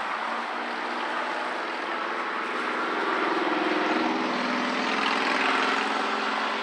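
Ryobi 40-volt brushless cordless electric lawn mower running with its 20-inch blade spinning while mowing. A steady motor and blade whine over a rushing noise, with the pitch shifting around three seconds in.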